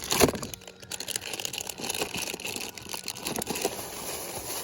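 Fishing tackle being handled close to the microphone: a busy run of small clicks and crinkling rustles.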